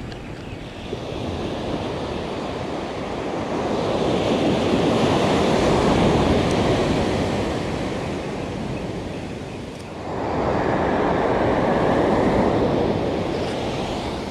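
Ocean surf breaking and washing up a sand beach, in two waves: the first builds to a peak about halfway through, and the second surges in sharply about ten seconds in.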